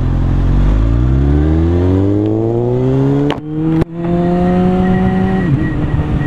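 Sport bike engine accelerating hard: the revs climb for about three seconds, break off twice in quick succession about three and a half seconds in as it shifts up, then hold steady and settle a little lower near the end.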